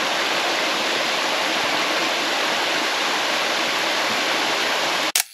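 Small mountain cascade waterfall, a steady rush of falling water. Near the end it breaks off in two sharp clicks and cuts to silence.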